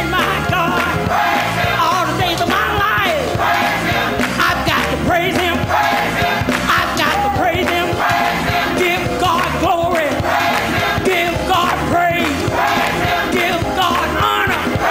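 Live gospel song: a woman sings lead with a wavering, vibrato-laden voice into a microphone over a steady instrumental backing, with the congregation singing along.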